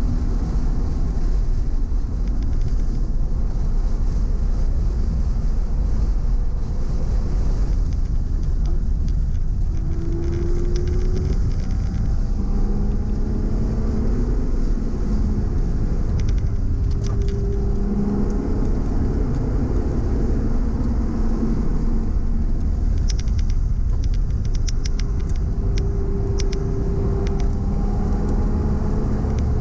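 Porsche engine heard from inside the cabin at track pace, its revs rising and falling through the corners over a steady low road and wind rumble. Clusters of sharp ticks come about halfway through and again later.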